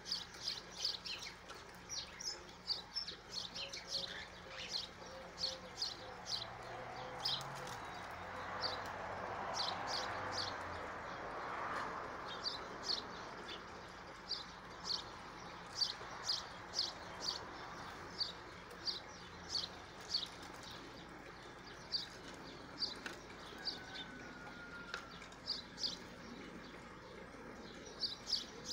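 Small songbirds chirping continually in short, high chirps, several a second at uneven spacing. A soft rushing noise swells and fades about a third of the way in.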